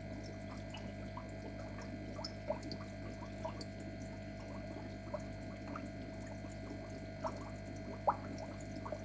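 Water trickling, with scattered small drips and splashes over a steady hum.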